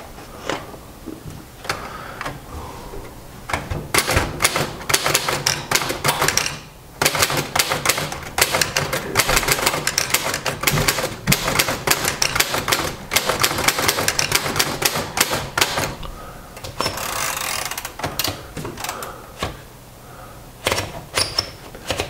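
Typing on a 1938 Royal DeLuxe manual portable typewriter with its touch control set light: a few scattered keystrokes, then fast runs of typebar strikes with a short pause about seven seconds in. Around seventeen seconds in there is a brief rushing sound, followed by a few last keystrokes.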